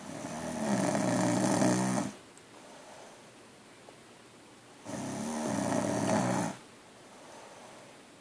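A woman snoring in her sleep: two loud, rasping snores about five seconds apart, each lasting one and a half to two seconds, with quiet breathing between them.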